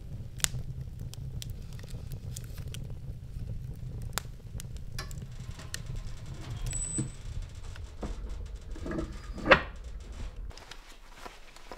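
Split firewood burning in an open wood stove: a low steady rumble of the fire with scattered sharp crackles and pops. About nine and a half seconds in comes a short, sharp squeaking scrape, the loudest sound here, and the rumble stops soon after.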